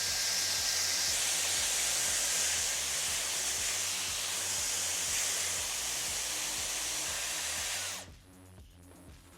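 Hot-air hair styler with a Dyson-Airwrap-style curling barrel running, blowing a steady rush of air, then switched off abruptly about eight seconds in.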